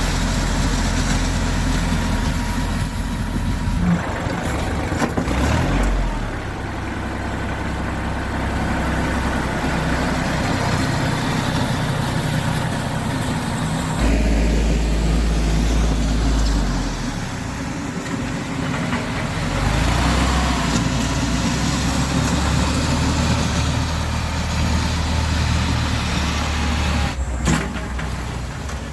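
Kubota compact tractor's diesel engine running while it grades gravel with a box blade, its note changing several times as the load shifts. A sharp knock sounds near the end.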